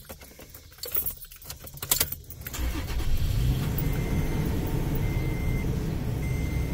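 Keys jangling and turning in a Toyota Tacoma's ignition, then about two and a half seconds in a steady low running noise from the truck starts and holds. A short high chime repeats about once a second over it.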